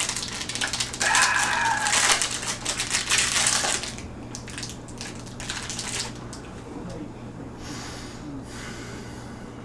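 Snack-bar wrapper crinkling as it is torn open and peeled back by hand, a rapid rustle of crackles for about the first four seconds that then dies down.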